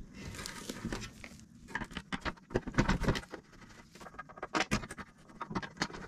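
Irregular clicks, taps and light scrapes of hard parts being handled as a plastic wear plate is fitted against the metal deck of a Goslide standing platform.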